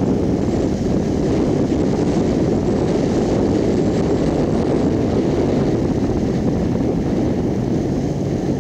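Steady rush of wind on the microphone over a motorcycle running at road speed.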